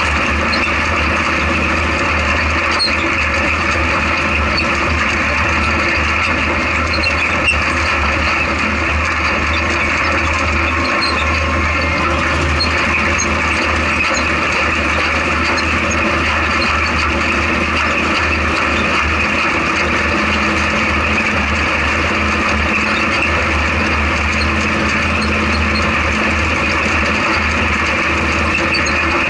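Off-road race vehicle's engine and drivetrain running steadily at speed, heard from inside its open cockpit, with small rattles from the chassis.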